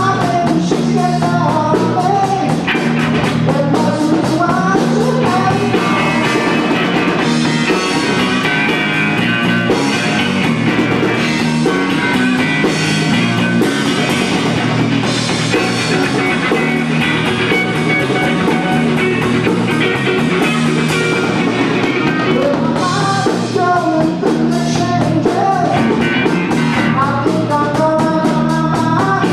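Rock band playing: electric guitar, drum kit and singing, running continuously.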